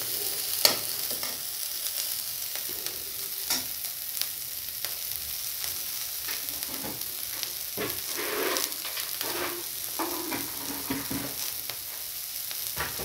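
Chopped onion and green chillies sizzling steadily in hot oil in an aluminium kadhai as they are sautéed, with a slotted steel spatula scraping and knocking against the pan, sharpest about a second in.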